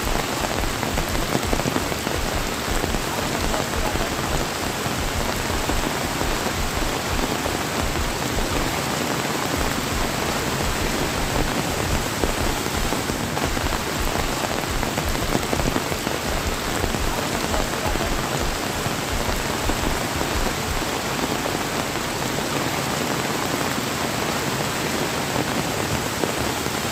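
Steady heavy rain, a dense even hiss, mixed with storm runoff rushing over rocks and debris.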